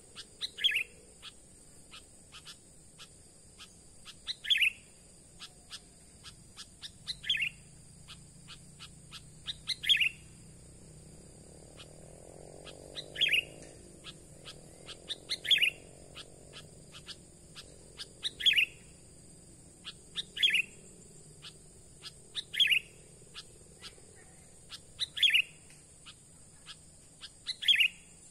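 Sooty-headed bulbul (kutilang) calls: a short, sharp note repeated about every two to three seconds, around eleven times, with faint ticks between them. A steady high hiss runs underneath.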